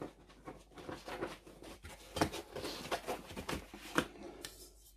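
Handling noise from model truck kit parts being picked up and turned over: irregular rustling with clicks and knocks, the sharpest about two and four seconds in.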